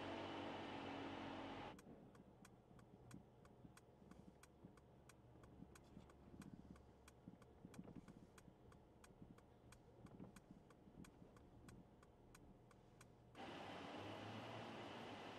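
Evenly spaced ticking, about three clicks a second, typical of a car's turn-signal indicator, in the quiet cabin of a Mercedes S-Class over a low rumble. A steady hiss and hum comes before it and returns near the end.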